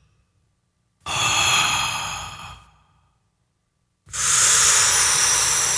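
Mouth-made breath sound effect played back after heavy processing with compression, reverb and tape-machine colouring: two long breathy exhales. Each starts abruptly and tails off over about a second and a half, with silence between them.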